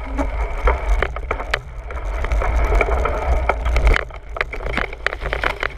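Mountain bike rattling and clattering over a rough dirt trail, with many irregular sharp knocks over a strong, constant low rumble.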